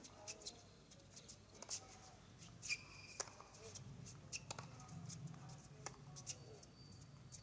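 Tennis rally: sharp racket-on-ball strikes, one roughly every one to two seconds, over a low hum that grows louder about four seconds in.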